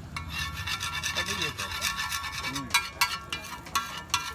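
Steel spatula scraping rapidly across a large flat griddle: metal on metal, a rasping scrape with a ringing edge. In the last second and a half come sharp clacks as the blade strikes and chops on the plate.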